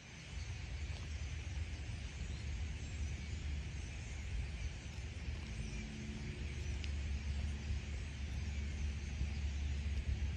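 Outdoor ambience with a steady low rumble and a light hiss; a faint hum joins about halfway through and fades a couple of seconds later.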